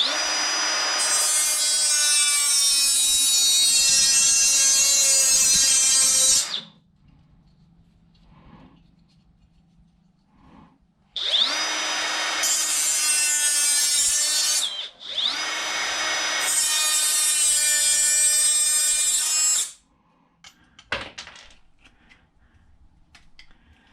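Small handheld power saw cutting a length of Wiremold raceway to size. It runs in three spells: one of about six seconds, then after a pause two more of a few seconds each, back to back, each starting with a rising whine.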